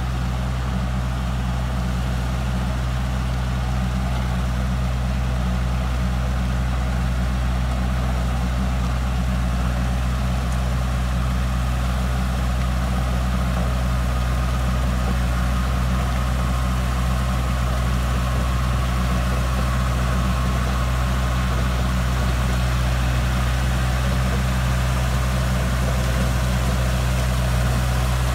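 Tractor engine running steadily at an even speed, a deep constant hum that grows slightly louder over the stretch.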